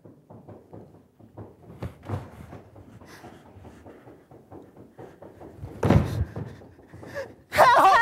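Footsteps and shuffling of performers moving about a stage, with a loud thump about six seconds in. Near the end a woman's voice begins singing loudly into a microphone.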